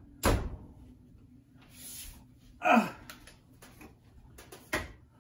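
Samsung gas range oven door being pushed onto its hinges and shut: a sharp clunk, a short sound that falls in pitch about midway, and another clunk near the end.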